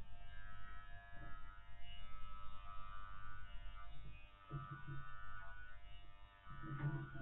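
Electric dog hair clipper buzzing steadily as it is pushed through a Spanish water dog's curly coat. Two brief lower-pitched sounds come about halfway through and near the end.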